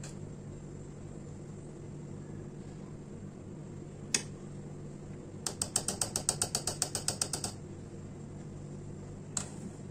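Metal fork clinking against a steel pot, with single clinks and, in the middle, a quick run of about ten light taps a second for two seconds as excess melted chocolate is shaken off a coated laddu. A steady low hum runs underneath.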